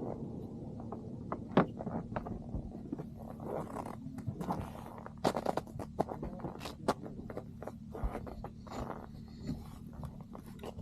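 Irregular knocks, clicks and scrapes of things being handled and moved about, over a steady low hum.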